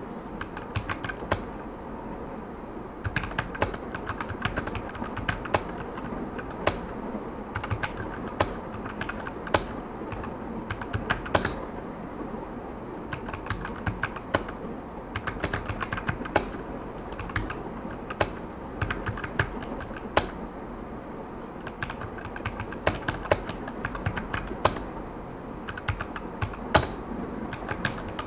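Typing on an E-Yooso Z686 65% mechanical keyboard with linear red switches: a fast, irregular stream of key clacks, briefly thinning out about two to three seconds in.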